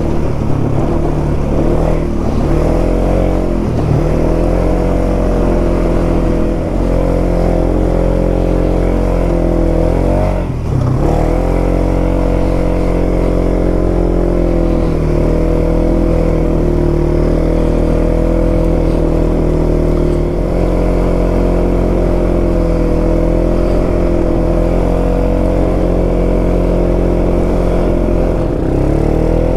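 2021 Polaris 570's single-cylinder engine running under way at mostly steady revs. The revs dip and climb back a few times, most sharply about ten seconds in.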